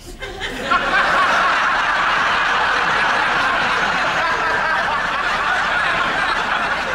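Studio audience laughing, swelling up within the first second and holding steady.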